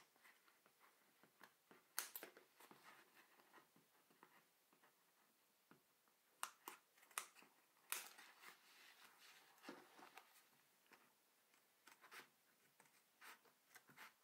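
Faint, irregular snips of scissors cutting through layered paper and thin sheet material, with the clearest snip about two seconds in and a run of them between about six and eight seconds.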